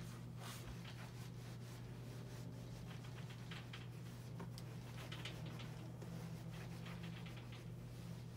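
Steady low hum of a small room, with faint intermittent rustling and light taps of handling around an ironing board.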